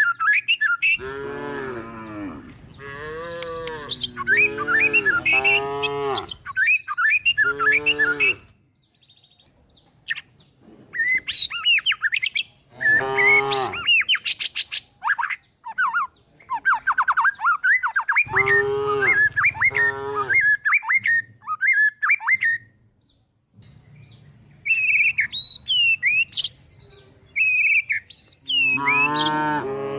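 Cattle mooing again and again: a run of drawn-out calls with a wavering pitch, a cluster at first, then a few more through the middle, and more calls starting just before the end. Small birds chirp in the quieter gaps between them.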